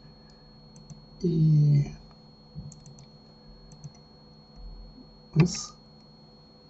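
Scattered faint clicks from a computer keyboard and mouse: a few short, separate taps as Blender shortcut keys are pressed.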